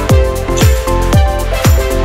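Electronic dance background music with a kick drum about twice a second under sustained synth chords.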